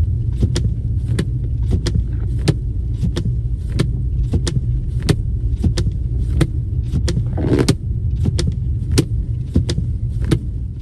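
Steady low rumble with sharp clicks or ticks every half second or so, and a brief rustle about seven and a half seconds in.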